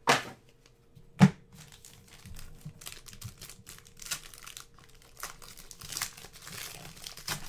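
Two sharp knocks, the louder about a second in, then the silver foil wrapper of a trading-card pack crinkling and tearing as it is worked open by hand.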